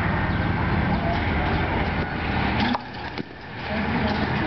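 Steady rumbling outdoor noise with a few sharp knocks a little under three seconds in: a baseball bat striking balls from a pitching machine in a batting cage.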